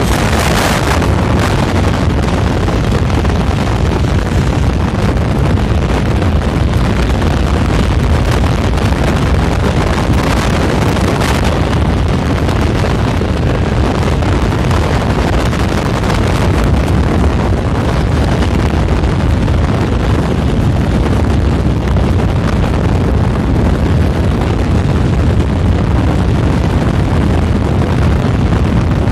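Loud, steady rush of wind and road noise from a car moving at highway speed, with wind rumbling on the microphone.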